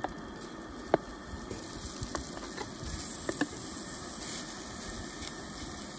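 Chopped sausage pieces sizzling in a hot cast iron skillet on a camp stove: a steady hiss with a few scattered crackling pops.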